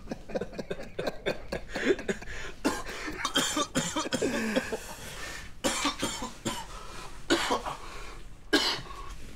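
A man laughing in short, breathy fits, breaking now and then into coughs.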